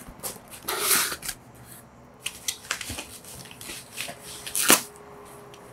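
Cardboard shipping box being opened by hand and its white wrapping rustled as a book is drawn out: a run of papery rustles and scrapes, with a louder crackle about a second before the end.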